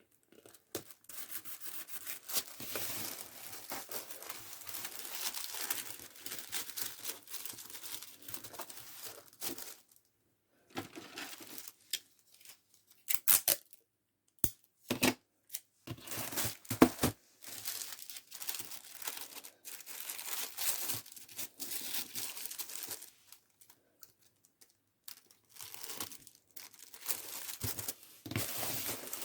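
Packing material being handled by hand, crinkling and tearing in stretches with short pauses. A few sharp taps come about halfway through.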